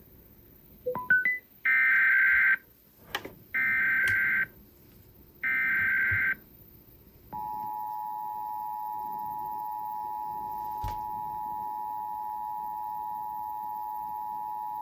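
Emergency Alert System broadcast tones. First come three short bursts of warbling digital data tones (the SAME header), each just under a second long and about a second apart. About a second later the steady two-tone EAS attention signal starts and holds for about eight seconds. Together they open a Required Monthly Test.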